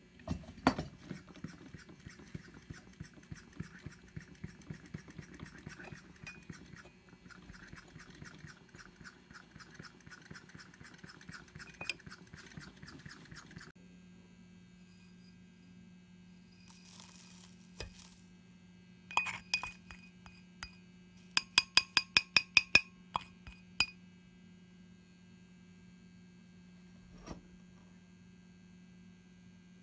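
Glass clinking: a quick, even run of about eight sharp clinks, roughly three a second, with a few scattered knocks around it. Before that there is a long stretch of fast, faint ticking and scraping, and a low steady hum runs under the second half.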